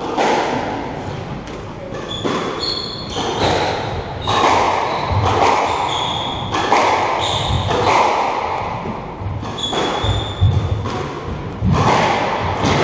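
Squash rally: the ball smacking off racquets and the walls every second or so, each hit ringing on in the echoing court. Short high squeaks of court shoes on the wooden floor come between the hits.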